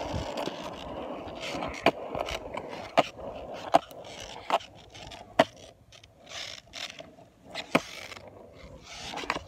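Skateboard rolling, its wheels making a steady rumble with a sharp click roughly once a second.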